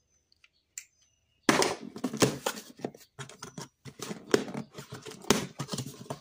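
Utility knife slicing through packing tape and cardboard along a box seam: a quick run of rough scraping strokes starting about a second and a half in, ending with the cardboard flaps being pulled open.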